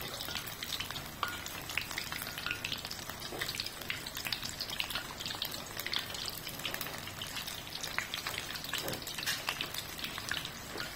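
Battered prawns deep-frying in hot oil, which sizzles and crackles steadily as more prawns are dropped in by hand.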